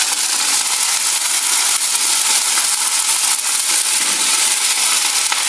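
Cauliflower florets and potato pieces, still wet from a wash in turmeric water, sizzling in hot oil in a nonstick kadai: a loud, steady hiss with many small crackles.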